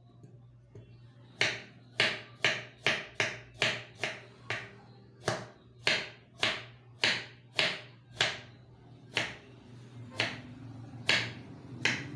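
Kitchen knife chopping through a root onto a wooden cutting board: about twenty sharp knocks of the blade on the board, two to three a second, with a few short pauses.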